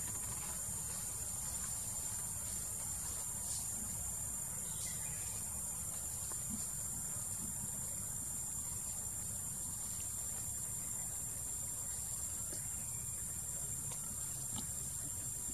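A steady, high-pitched chorus of insects droning without a break, over a low steady rumble.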